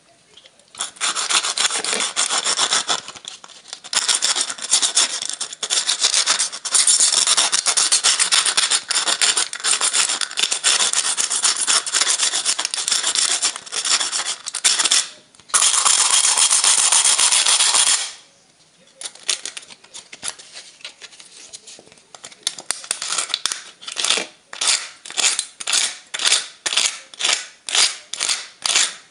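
Cut aluminium drink-can pieces being rubbed and scraped by hand. There is a long stretch of dense, continuous scraping, then a short lull, then rhythmic back-and-forth strokes at about two a second.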